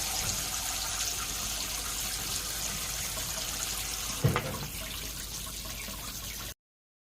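Water running steadily into a kitchen sink, with a single knock about four seconds in; it cuts off suddenly near the end.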